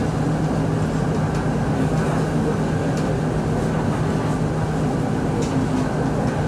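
Interior running noise of a Japanese-built Bangkok MRT Purple Line train on the move: a steady rumble with a low steady hum, heard from inside the carriage, with a few faint clicks.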